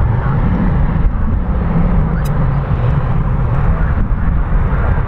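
Airbus A321-211's CFM56-5B turbofan engines at takeoff thrust as the jet lifts off and climbs out: a loud, steady jet rumble, heaviest in the low end.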